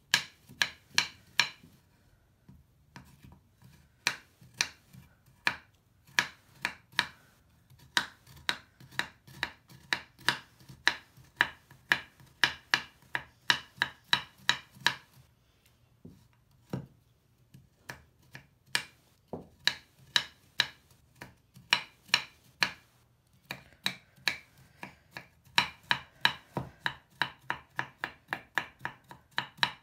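Kitchen knife chopping a crumbly Lush bubble bar on a wooden cutting board: crisp chops about two or three a second, in runs with a few short pauses.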